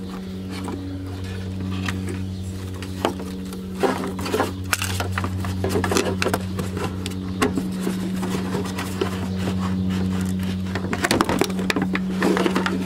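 Irregular plastic clicks and rattles as the washer pumps are worked loose with a screwdriver from a plastic windshield-washer fluid bottle, over a steady low hum.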